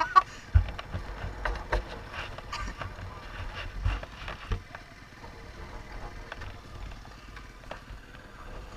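Dirt bike being ridden off-road: wind rushing over the microphone over a low engine drone, with sharp knocks right at the start and several low thumps in the first five seconds, then steadier.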